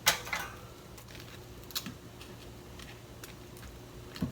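Light clicks and taps of utensils against a bowl as fried tempura shrimp are placed on soba noodles. The sharpest click comes right at the start, scattered soft ticks follow, and there is a small thump near the end.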